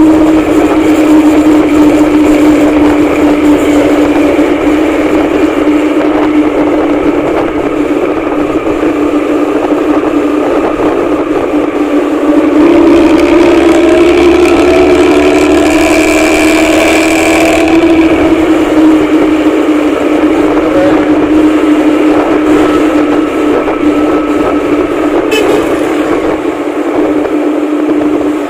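A vehicle engine running steadily with road noise. Its pitch rises for a few seconds in the middle, then settles back.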